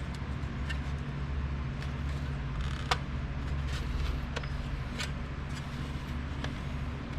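Scattered light metal clicks and taps as the mounting tabs on a car stereo's metal sleeve are pushed down and locked in place, the sharpest click about three seconds in, over a steady low hum.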